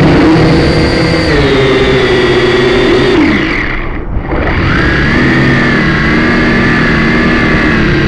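Syma X5C quadcopter's small motors whining loudly with a rushing noise, heard from the drone's own camera. About halfway the whine slides down in pitch and fades for a moment as the quad pitches steeply nose-down, then picks up again at a new steady pitch.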